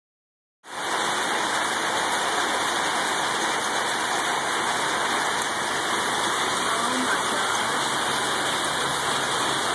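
Hail falling on a paved street and parked cars, a dense, steady hiss of countless small impacts that starts about half a second in.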